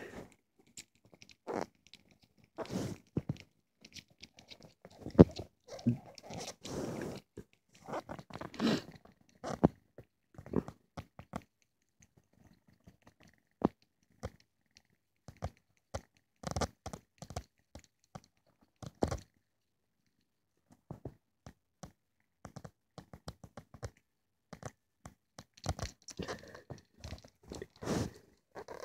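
Irregular rustling and scuffing from a hand rubbing a tabby kitten's chin and fur against soft bedding. It comes in short clusters with quiet gaps between.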